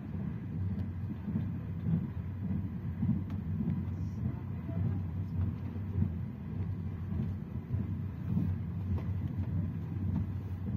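Passenger train running at speed, heard from inside the carriage: a steady low rumble of the wheels on the track.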